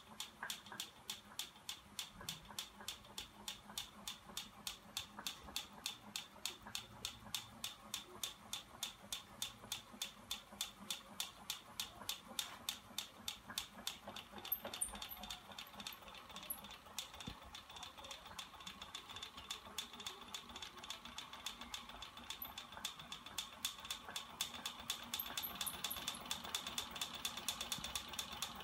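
Homemade magnet engine rig running, its linkage clicking in an even rhythm with each cycle, about three clicks a second at first, then faster and denser past the middle. A steady high whine from its battery-driven electric motor runs underneath.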